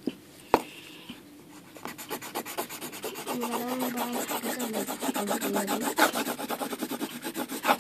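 Green colored pencil shading rapidly back and forth on coloring-book paper, a fast run of rubbing strokes that starts about two seconds in. A single sharp tap comes about half a second in.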